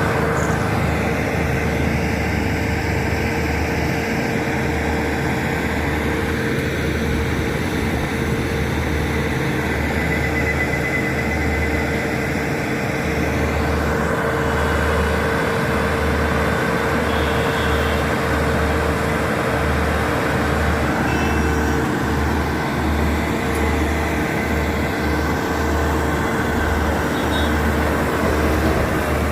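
Heavy diesel engine of construction machinery running steadily, with a deep, unevenly pulsing hum and a steady mid-pitched drone.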